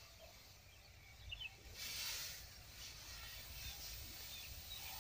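Faint outdoor field ambience: a brief rustle about two seconds in and a few faint high chirps over a low steady background.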